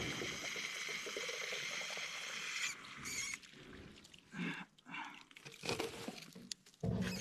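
Water running from a pipe into a container, stopping about three seconds in, followed by scattered small knocks and splashes as the container is handled.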